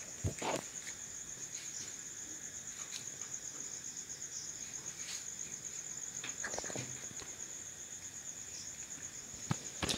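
Steady, high-pitched chirring of crickets in the background, with a few faint clicks.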